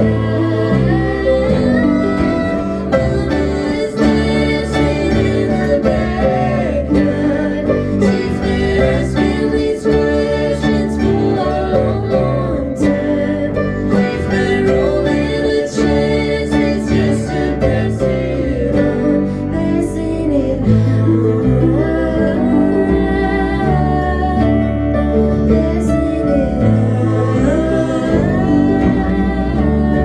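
Live band music led by a concert harp being plucked, over a deep bass line, with a voice singing.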